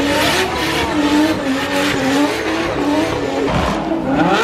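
Drift car engine revving hard, its pitch rising and falling with the throttle, with a steep climb near the end.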